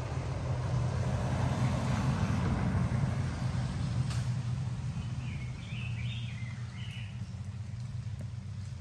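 Low, steady engine rumble from an unseen vehicle, easing off through the second half, with a few short bird chirps partway through.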